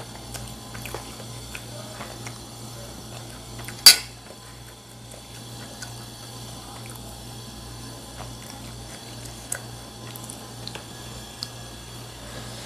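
Metal spoon clinking and scraping against a ceramic bowl during eating, with one sharp clink about four seconds in and a few lighter taps later. A steady low hum runs underneath.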